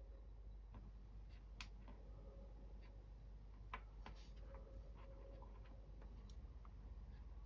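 Near silence with a few faint, scattered small clicks and taps as fingers handle a Caddx Vista video transmitter and its antenna mount, over a faint steady hum.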